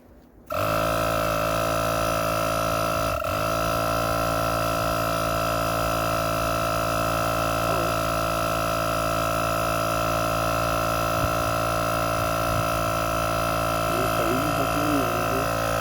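A steady machine hum with a high whine switches on abruptly about half a second in and runs on unchanged, with a brief dip about three seconds in. Faint voices come in near the end.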